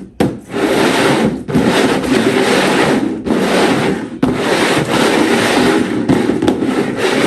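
Bowls being slid and shuffled around on a tabletop: a loud, continuous scraping and rattling in strokes of one to two seconds each.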